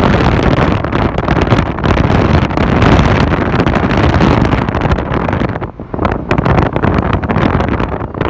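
Road and traffic noise from a moving car, with heavy wind buffeting on the microphone. The noise eases briefly about six seconds in.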